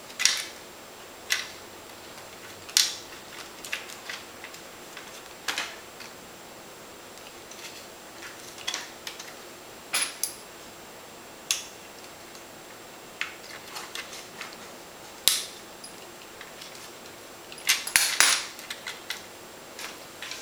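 Scattered sharp clicks and light knocks of a laptop being put back together by hand: its plastic casing pressed into place, and small screws and a screwdriver picked up from and set down on a tiled table. A quick run of several clicks comes near the end.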